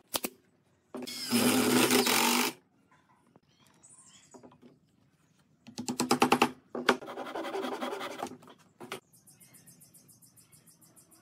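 A pneumatic brad nailer fires a couple of sharp shots into pine blocks at the start, followed by two stretches of loud, rough tool noise, the second opening with a rapid rattle of about ten strokes a second.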